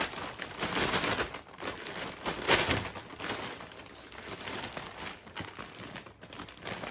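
Plastic vacuum-bagging film crinkling and rustling in irregular handfuls as it is pulled off a freshly laid-up carbon-fibre mudguard, loudest near the start and again about two and a half seconds in.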